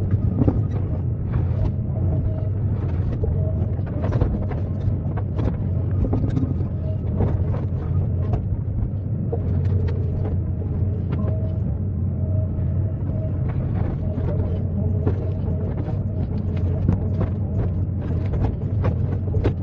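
Excavator engine running steadily with a low rumble, with frequent short knocks and clanks throughout.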